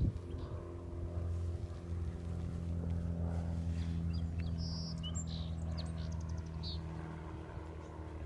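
Steady low motor hum with even overtones, fading slightly near the end. A few bird chirps and a short rapid trill come in the middle.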